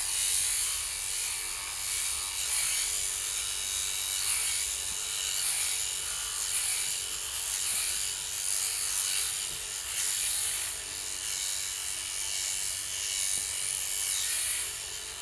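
Beiyuan Xpert sheep-shearing machine running steadily, its oil-bath handpiece driven through a flexible shaft and cutting through a sheep's fleece: a continuous high buzz.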